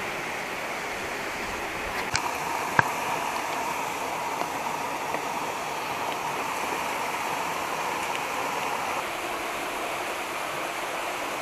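Stream water running steadily over rocks, with two short sharp clicks about two and three seconds in.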